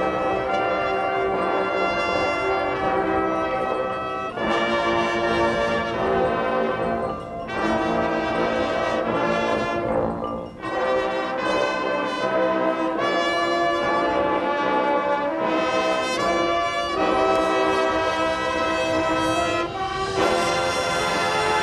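Marching band brass playing loud held chords, moving to a new chord every few seconds, with short breaks about seven and ten seconds in.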